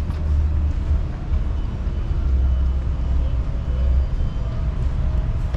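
Outdoor ambience dominated by a steady low rumble with a light hiss over it.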